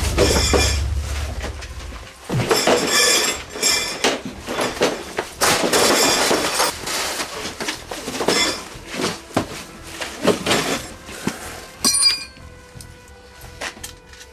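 Fight sounds: a heavy low thud, then repeated crashing, clattering and glassy clinking and breaking of knocked-about objects, with a sharp crash near the end, over film music.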